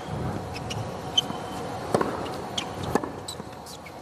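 Tennis rally on a hard court: rackets striking the ball and the ball bouncing, a handful of sharp pops at uneven intervals over a low steady crowd hum.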